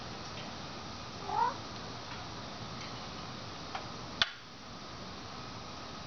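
Congo African grey parrot giving one short call that rises in pitch about a second in. A faint tick and then a sharp click follow about four seconds in.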